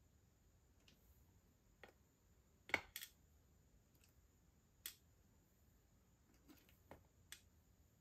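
Faint, scattered small plastic clicks of perler beads rattling against their clear plastic box as a hand picks through them, about nine clicks in all, the loudest pair a little under three seconds in.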